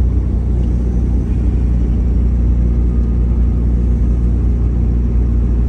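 Car driving at a steady speed, heard from inside the cabin: a steady low rumble of engine and road noise.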